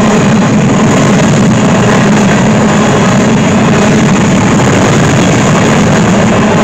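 Covered hopper cars of a BNSF freight train rolling past close by: steel wheels running on the rails in a steady, loud rumble.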